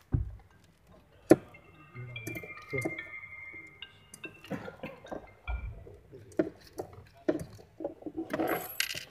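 Irregular metallic clinks, clicks and knocks as a thin metal tool is worked against the plastic centre console during an armrest fitting, with one sharp click about a second in.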